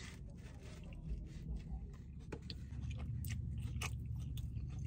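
A man biting into and chewing food at close range: scattered short crunchy clicks over a low steady rumble.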